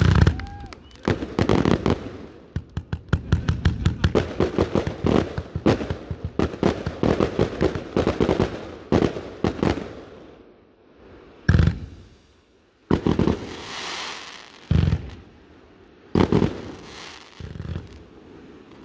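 Fireworks display: a rapid run of sharp bangs and crackle from about one to ten seconds in, then a handful of single loud bangs a second or two apart.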